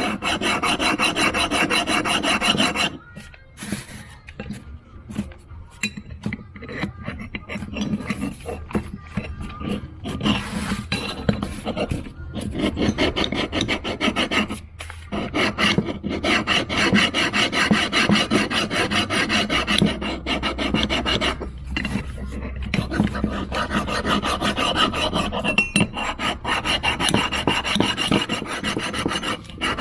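Hand file rasping back and forth across the metal base of a Holley 94 carburetor in steady strokes, flattening the warped mating surface, with a few short pauses between runs of strokes.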